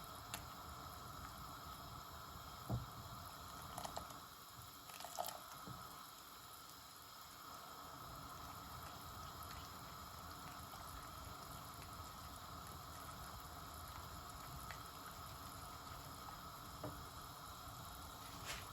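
Corn-flour-thickened vegetable Manchurian gravy simmering in the pan: a faint, steady bubbling, with a few faint clicks scattered through it.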